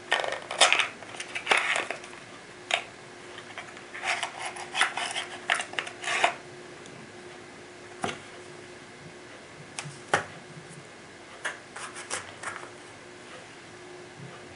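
A small cardboard box being opened and its contents handled: bursts of rustling and scraping through the first six seconds, then scattered small clicks and taps as a CP88 air pistol barrel part and a small pin are lifted out and turned in the hands.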